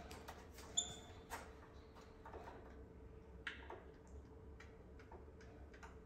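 Faint scattered ticks and taps of a capuchin monkey's hands on a budgie cage and its tray, with one short high chirp from the budgie about a second in, over a faint steady hum.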